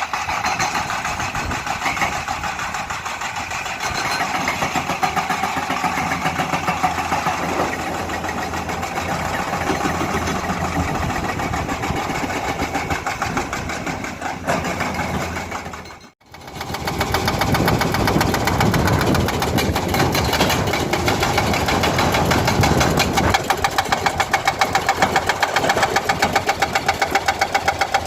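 An excavator's diesel engine running while its hydraulic breaker hammers rock in rapid, even blows. The sound drops out briefly about sixteen seconds in, then comes back with a steady pounding beat.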